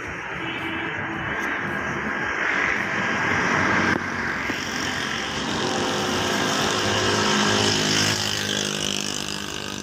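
Road traffic: the engine of a passing motor vehicle, a steady hum that grows stronger and more tonal in the second half.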